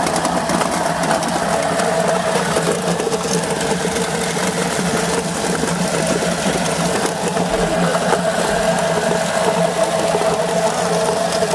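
Electric chestnut peeling machine running steadily, peeling a batch of chestnuts: a constant motor hum under a dense, gritty rasp of chestnuts tumbling in the drum as their skins are scraped off.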